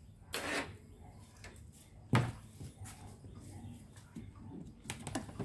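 Handling noises on a workbench: a short scrape, then a single sharp knock about two seconds in, and a few small clicks near the end.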